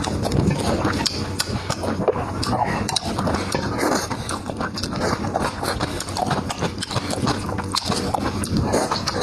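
Close-miked chewing of food, a dense run of quick clicks and smacks without pause.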